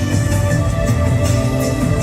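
Instrumental music with sustained tones and a steady beat.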